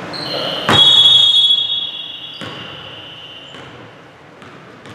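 Referee's whistle: one loud, shrill blast about a second long, starting with a thud, then echoing away in the gym. Another blast begins right at the end.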